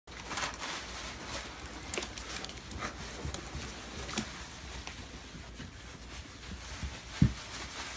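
Plastic litter pan being handled and moved about, with scattered clicks and knocks and one louder thump near the end.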